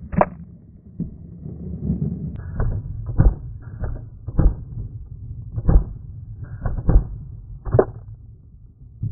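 Paintball marker firing single shots, about ten sharp pops at irregular intervals, over a low rumble of handling and wind on the marker-mounted camera.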